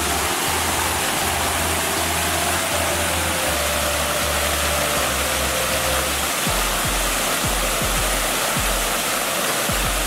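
Waterfall rushing steadily into a pool, mixed with background music: low bass notes, with a steady drum beat coming in past the halfway point.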